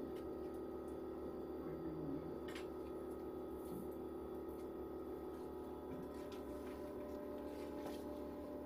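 Steady multi-tone hum of a machine running in the room, with a few faint clicks and paper sounds over it.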